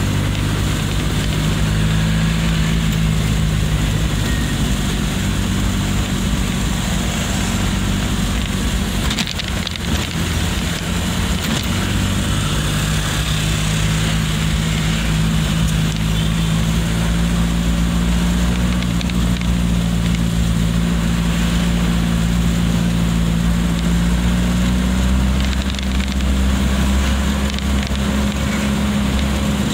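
A car's engine and road noise heard from inside the cabin while driving in traffic: a steady low hum over tyre noise. The hum breaks off briefly about nine seconds in and steps up slightly in pitch near the end.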